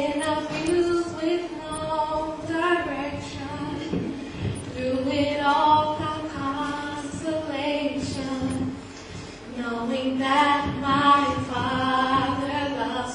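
Young women's voices singing a gospel song together, several voices blending on long held notes.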